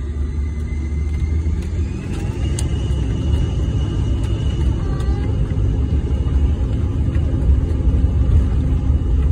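Jet airliner engines and cabin rumble heard from inside the cabin as the plane rolls toward its takeoff, a steady deep rumble that slowly grows louder. A faint thin whine rises in pitch about two seconds in.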